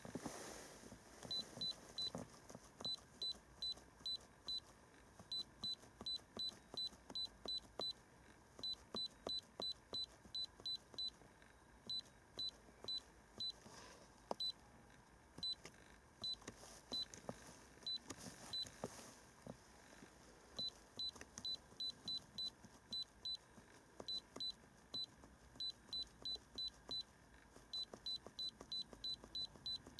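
Handheld iCarsoft i930 scan tool beeping at each key press as its menu is scrolled: runs of short, identical high beeps, up to about four a second, broken by pauses.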